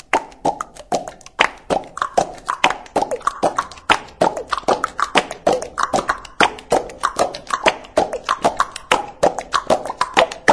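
Beatboxing: a fast, even run of mouth clicks and pops, about six or seven a second, many pops with a short falling pitch.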